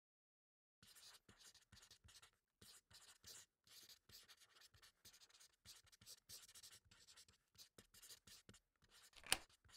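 Faint pencil scratching on paper in short, irregular strokes, with one sharper, louder click near the end.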